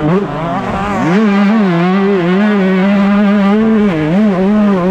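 Yamaha YZ125 single-cylinder two-stroke engine heard from onboard during a motocross race. It drops off the throttle briefly at the start, revs up sharply about a second in, and holds at high revs with a couple of short dips near the end.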